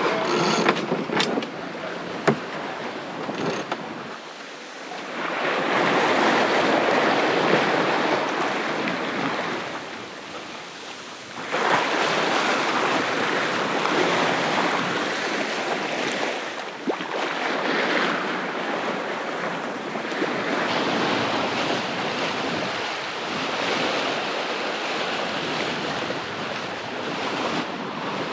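Wind and sea water rushing past a sailboat under sail, with wind buffeting the microphone; the rush swells and eases in long surges. A few sharp clicks in the first couple of seconds.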